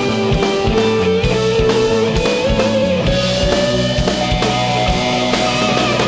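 Rock music: drum kit and bass under an electric guitar lead holding long notes, sliding up into a wavering note about two and a half seconds in.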